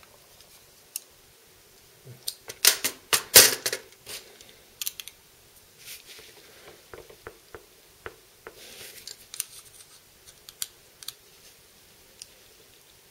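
Small metal tools clicking and scraping as a screwdriver and a bit driver are handled and worked against the screws of a folding knife. There is a loud cluster of clatter about two to four seconds in, then scattered sharp clicks and a short scrape.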